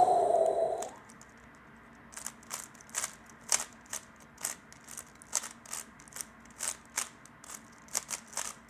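Layers of a 3x3 speedcube being turned by hand, a run of sharp plastic clicks at about two or three a second, irregular. A short falling tone fades out within the first second.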